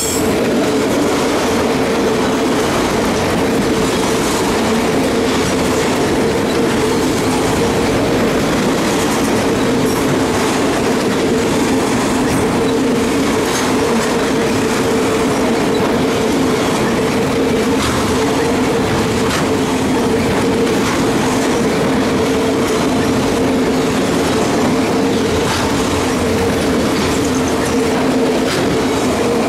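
A train's cars rolling steadily past, wheels clicking over the rail joints, over a constant two-note humming drone.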